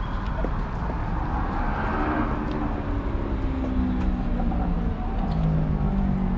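A motor vehicle passing along the street, its engine note dropping slowly in pitch as it goes by, over a steady low traffic rumble.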